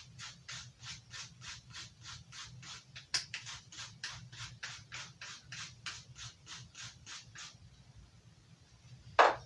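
Knife blade drawn across a grit sharpener in quick, even strokes, about three a second, each a short scrape: one side of the edge being sharpened. The strokes stop about three-quarters of the way through.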